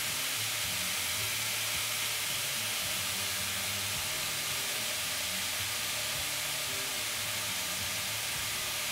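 Raw beef burger patties sizzling steadily on the hot grill grate of a Ninja Foodi Smart XL Grill.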